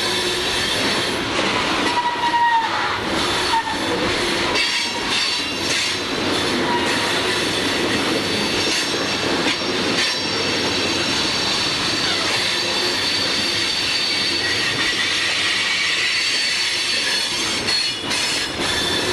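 CSX freight train of open-top hopper cars rolling past on curved track. Steel wheels run on the rails with a steady rumble and thin high-pitched flange squeal, and now and then a sharp click as wheels cross rail joints.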